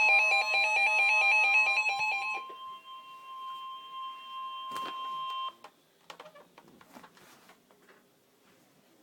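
Emergency alert tones. A fast warbling electronic multi-tone signal lasts about two and a half seconds. A single steady weather-radio warning tone of about 1 kHz follows for about three seconds and cuts off sharply, leaving only faint clicks.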